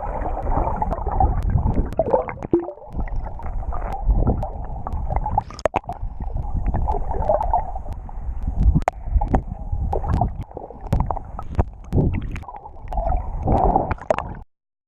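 Muffled water sloshing and gurgling, with scattered sharp clicks, as picked up by a camera in or at the water. It cuts off abruptly near the end.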